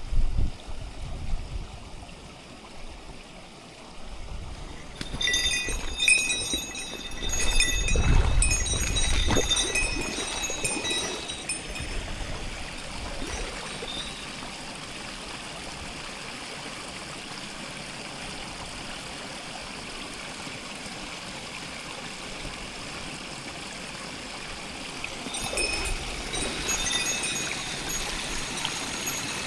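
Mountain stream flowing steadily over rocks. Twice, a spell of high, rapid chirping rides over it: once for several seconds early on, and again near the end. There are low rumbles near the start and again around eight seconds in.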